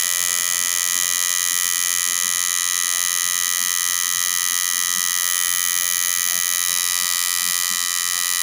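Electric tattoo machine running steadily with a high-pitched buzz as its needle lines the skin.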